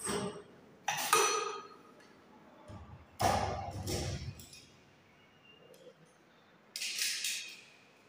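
Metal door-lock hardware, a brass lever handle plate and a steel mortise lock, clinking and knocking against the wooden door as it is handled and the lock body is worked out of its mortise: a ringing clink about a second in, a duller knock around three seconds, and a brief metallic rattle near the end.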